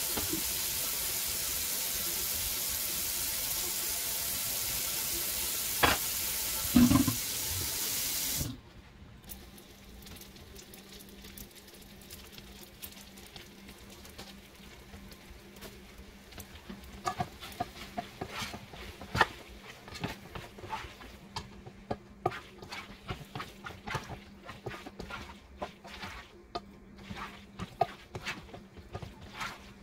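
Tap water running hard into a stainless-steel kitchen sink, with a couple of knocks, stopping suddenly about eight seconds in. After that it is much quieter: a steady low hum with irregular crackles and light clicks from pots cooking on an electric hot plate.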